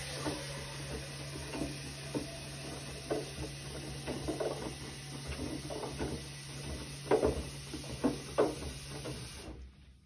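Bosch front-loading washing machine tumbling a wet wash load: a steady motor hum under irregular sloshing and soft thuds of wet laundry and water in the turning drum. The drum stops near the end.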